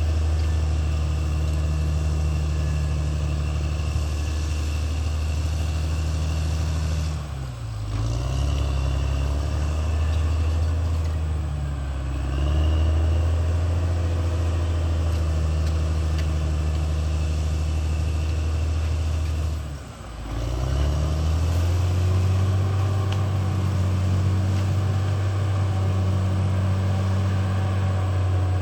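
Caterpillar D6R XL bulldozer's diesel engine running steadily, its pitch and level dipping briefly three times and then picking back up.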